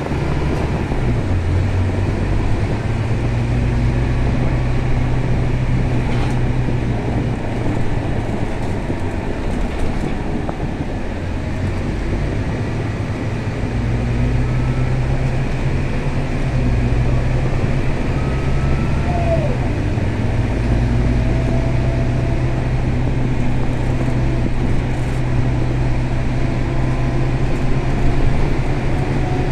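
Scania K320 bus's diesel engine running on the road, heard from inside the cabin. Its drone rises and falls with the bus's speed and eases off for a few seconds about ten seconds in before building again.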